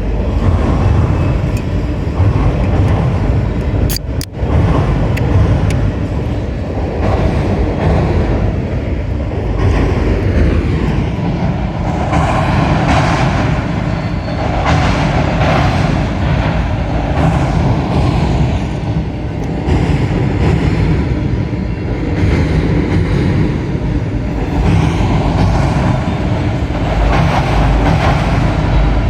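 A train passing close by: a steady, loud rumble of wheels on the rails that keeps on without a break, with a short dip and click about four seconds in.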